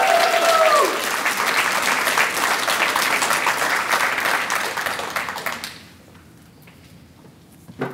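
Audience applauding, with a few voices whooping and cheering at the start. The clapping carries on until about five and a half seconds in, then dies away quickly. A single knock comes near the end.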